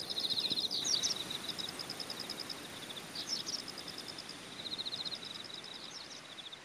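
Outdoor ambience: insects chirping in rapid high-pitched pulsed trills that start and stop again and again, with a few short bird chirps, over a steady low hiss.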